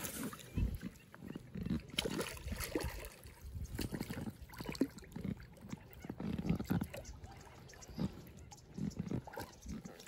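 Lake water lapping and sloshing against a float tube right at the microphone, in irregular small splashes and knocks.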